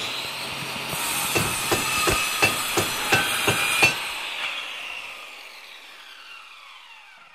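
A logo sound-effect sting: a quick run of about eight evenly spaced knocks, roughly three a second, over a high hiss that fades away.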